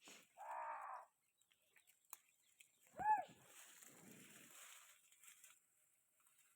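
Two short animal calls: a pitched call just under a second in, then a louder call about three seconds in that rises and falls in pitch. A spell of quieter rustling noise follows.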